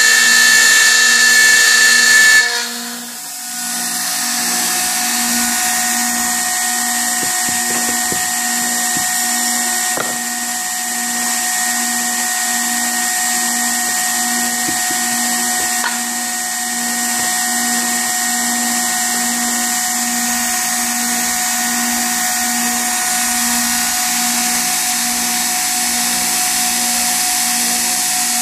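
Router with a 1/4-inch cutter milling into an aluminum plate, a loud steady whine. About two and a half seconds in the cutter comes out of the metal, and the router runs on unloaded, quieter and a little higher in pitch.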